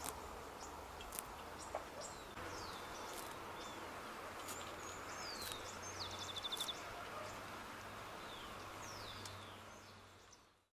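Outdoor ambience with small birds calling: scattered short, high, falling chirps, and a quick trill of about eight notes around six seconds in, over a steady background hush that fades out at the end.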